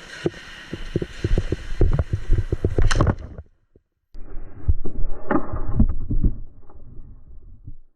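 Airsoft gameplay: a quick, irregular run of sharp clicks and knocks from shots and BB hits. It cuts off suddenly a few seconds in, and after a short silence more of the same follows.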